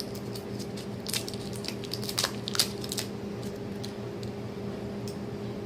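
Someone chewing a Now and Later chewy candy: soft, sticky clicks and crunches, thickest between about one and three seconds in, over a steady low hum.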